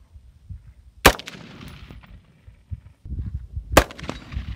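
Lightweight AR-15 rifle fired twice, about two and a half seconds apart, each shot cracking and then echoing away.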